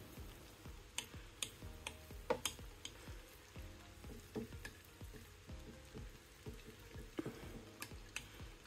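A plastic spoon stirring thick, hot cheese sauce in a glass baking dish: soft, wet scraping with scattered light clicks of the spoon against the glass.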